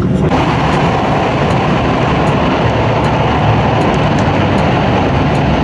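Thunderbird limited express heard from inside the passenger car, running at speed with a steady rumble of wheels on rail. A fraction of a second in, a loud rush of air noise comes in and holds as the train runs into a tunnel.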